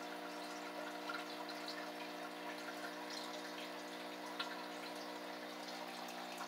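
Water dripping and trickling in a fish tub, over a steady low hum.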